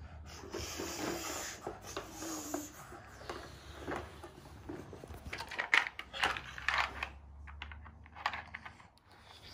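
Hard plastic toy pieces and blocks clicking and knocking together as they are handled, in an irregular run of clicks that grows busiest and loudest a little past halfway.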